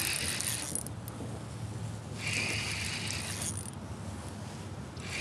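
Fishing reel working as a hooked bass pulls: a mechanical whirring that comes in two stretches of about a second each, one at the start and one around the middle.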